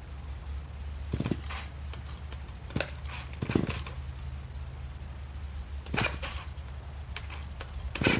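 Several short metallic clinks and rattles, scattered irregularly, over a steady low hum.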